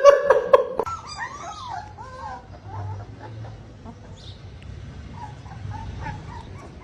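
A loud pitched cry in the first second, then a run of short, quieter, high-pitched animal calls repeated every few tenths of a second.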